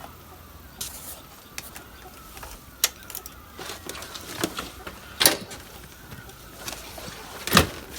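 Chickens clucking, with several sharp clicks or knocks scattered through it; the loudest knocks come about five seconds in and again near the end.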